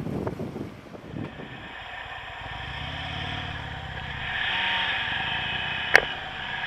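Motorcycle engine running, growing louder about four seconds in, with one sharp click near the end.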